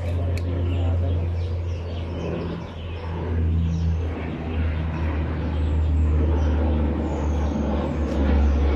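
Steady low rumble of road traffic running on a nearby road, with no single vehicle standing out.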